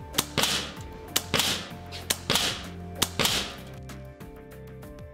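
Hatsan Vectis .22 PCP air rifle firing four shots about a second apart, each a sharp crack with a short rushing tail, over background music.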